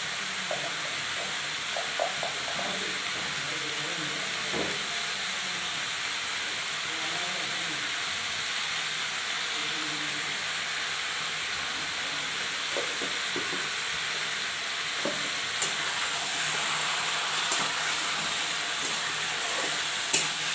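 Chicken pieces sizzling in hot oil in a kadai, stirred with a metal spatula: a steady hiss, with a few sharp clicks of the spatula against the pan in the last few seconds.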